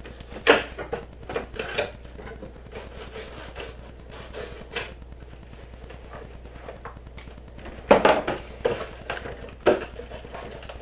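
Cardboard box being cut and pulled open by hand: a few sharp rips, scrapes and rustles of tape and cardboard flaps, the loudest cluster about eight seconds in.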